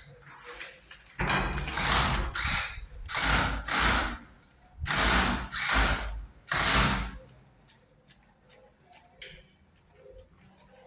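Hand ratcheting screwdriver clicking through about eight strokes in quick succession, with short pauses between them, as a screw is driven for a door lock.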